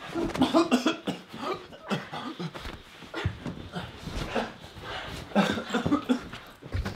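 A person's strained gasps and grunts in a struggle, in short irregular bursts, with a few scuffling knocks.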